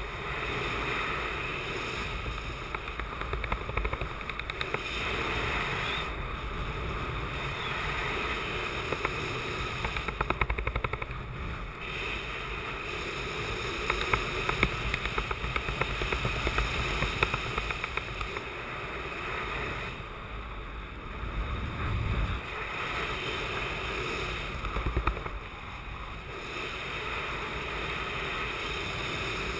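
Wind rushing and buffeting over the camera microphone in speed-wing flight, a steady noisy rush with a low rumble that swells and eases in gusts.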